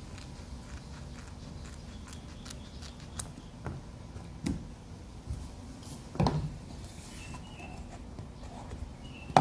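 Cutting a strip of KeelEazy keel-guard tape by hand: a run of short, sharp snipping clicks over the first four or five seconds, then a louder knock of handling about six seconds in and another at the very end.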